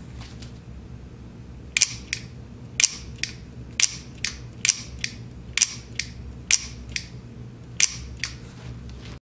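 Plastic shutter mechanism of a Gakkenflex twin-lens reflex camera kit being worked by thumb, test-fired after assembly. Each firing gives a pair of sharp clicks, repeated roughly once a second from about two seconds in.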